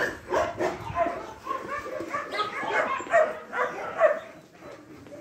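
Dogs barking and yipping in quick, overlapping succession, dying down near the end.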